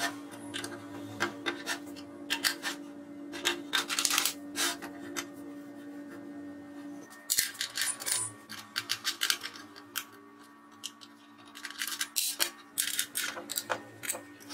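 Small metal clicks, taps and scrapes of wrenches and nuts and bolts being handled and fitted on a cut-off saw's steel hinge and base, coming in clusters of quick ticks.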